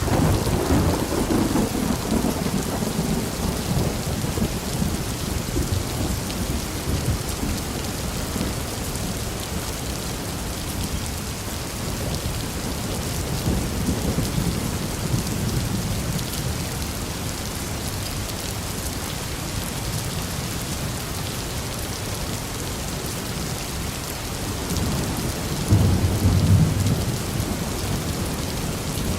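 Steady rain falling, with thunder rumbling three times: as it begins, about halfway through, and loudest near the end.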